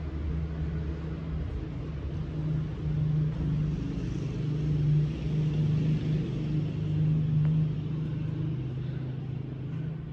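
An engine running nearby, a steady low hum that gets louder in the middle and eases off near the end.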